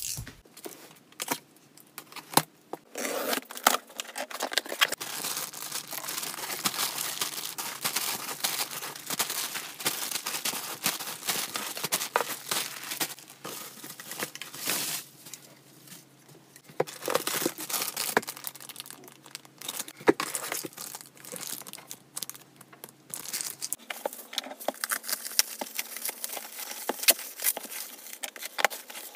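Plastic bags and bubble wrap crinkling and rustling as packages are handled and pulled from a cardboard box, with some tearing and sharp crackles. There is a short lull about halfway through.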